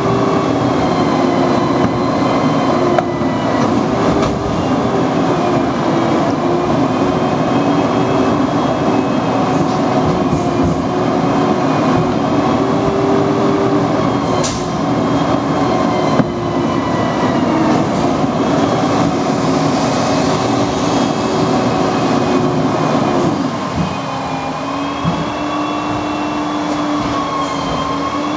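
2011 Peterbilt 320 garbage truck with a Wayne Curbtender body, standing still and running loudly at raised engine speed: a steady drone with a wavering high whine over it. About 23 seconds in, the engine speed drops and the drone settles to a lower pitch.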